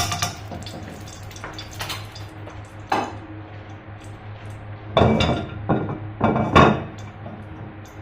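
A metal utensil clattering and scraping against a cooking pan a few times, loudest in a cluster of strokes a little after halfway, over a steady low hum.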